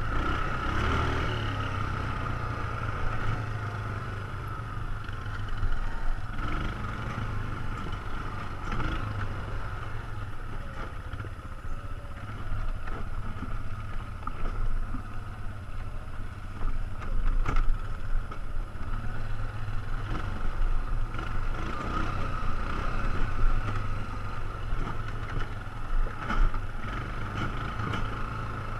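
ATV engine running steadily while riding over a rough dirt trail, with scattered knocks and rattles from the bumpy ground, one sharp knock a little past halfway.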